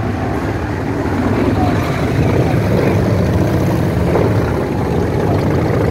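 Motorcycle engines running as a steady, even low rumble.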